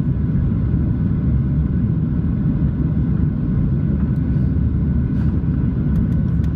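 Steady low drone inside the cabin of a Boeing 737-700 in flight: engine and airflow noise heard from an economy seat, with a few faint clicks near the end.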